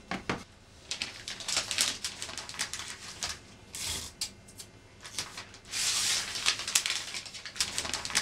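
Paper crinkling and rustling in irregular crackles as a present is wrapped by hand, thickest a little after the middle.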